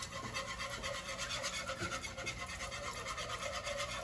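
A whisk scraping around a saucepan in quick, even strokes, beating milk into a butter-and-flour roux to make a white sauce.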